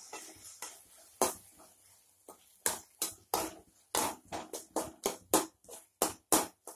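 A spoon stirring thick tomato-and-shallot thokku in a pan, knocking and scraping against the pan in quick irregular strokes that come faster in the second half.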